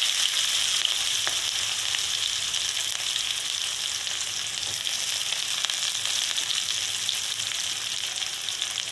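Freshly chopped onion frying in hot oil with cumin and mustard seeds in an aluminium kadhai: a steady sizzle with a few faint ticks, the onion beginning to brown.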